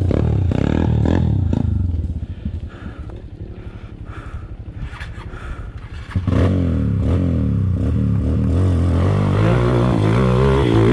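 Off-road dirt bike engine revving, falling back to a lower, uneven running about two seconds in, then revving loudly again with a wavering pitch from about six seconds in.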